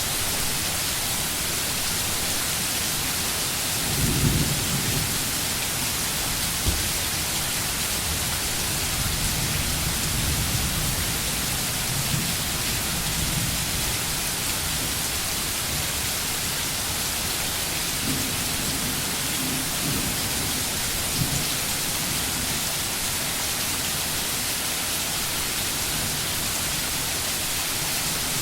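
Steady rain, an even hiss of drops, with low rumbles coming and going beneath it, the strongest about four seconds in.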